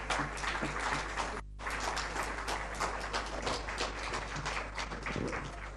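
Audience applause, many hands clapping irregularly, breaking off for an instant about a second and a half in and thinning out near the end.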